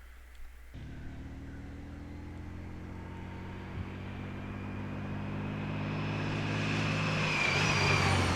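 Honda Gold Wing motorcycle approaching along the road, its engine running at a steady pitch and growing steadily louder, with road and wind noise building toward the end.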